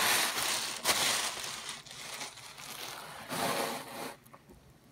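Crinkling and rustling as a white fluffy decoration is handled right against the phone's microphone, loudest in the first second with a sharp click, then a second spell before it dies away about four seconds in.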